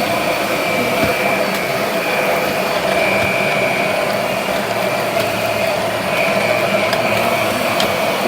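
Vacuum cleaner running steadily, a loud even motor noise with a faint high whine.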